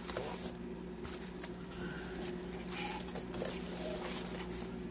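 A long cardboard kit box and its contents being handled and pushed back together: light rustling, small scrapes and taps, over a steady low hum.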